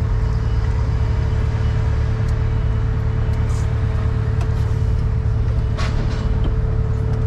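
Volvo wheeled excavator's diesel engine running steadily, heard from inside the cab, with a steady whine above the low hum.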